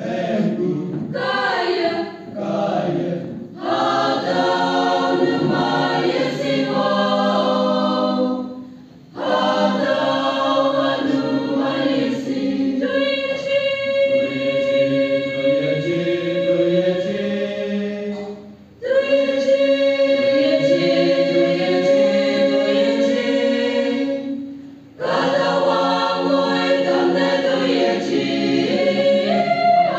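Mixed choir of women's and men's voices singing in harmony. A few short, separated chords open, then long held phrases follow, broken by three brief pauses for breath.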